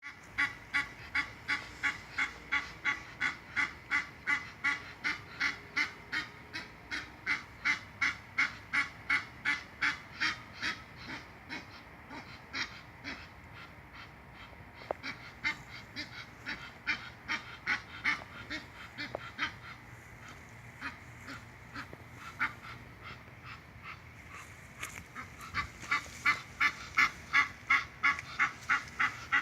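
Egyptian goose honking in a long, fast, steady series, about two to three honks a second. The calls grow fainter in the middle and loud again near the end.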